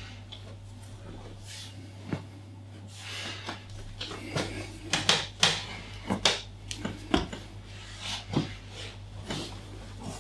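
Irregular sharp creaks and knocks, bunched in the second half, from a wooden folding massage table as the patient's body and leg are moved and pressed on it, over a steady low hum.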